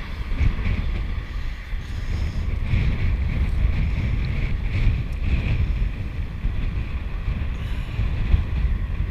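Strong wind buffeting the microphone: a heavy, uneven low rumble that swells and eases.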